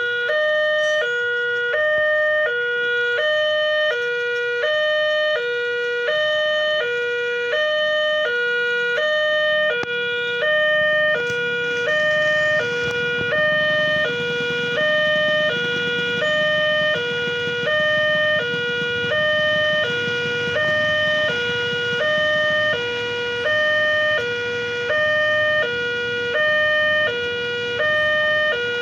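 Railway level-crossing warning siren sounding a steady hi-lo two-tone wail, switching between two pitches about every half second without pause. It signals that a train is approaching and the crossing is closing.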